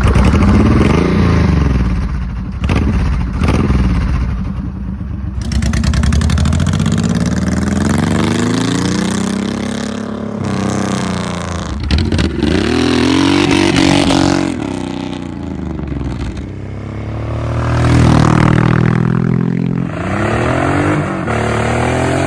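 Honda VTX 1800's 1.8-litre V-twin engine being revved again and again, its pitch rising and falling with each blip of the throttle, in several short takes.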